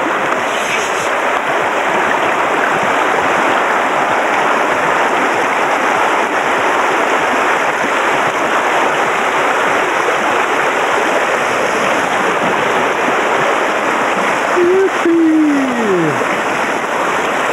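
Rushing white water of river rapids around a bamboo raft, steady and loud. Near the end a voice gives a brief falling call.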